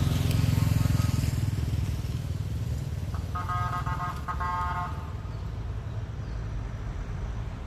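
Road traffic: a passing vehicle's engine rumbles, loudest at first and fading over the next few seconds. About three seconds in, a vehicle horn beeps twice, briefly.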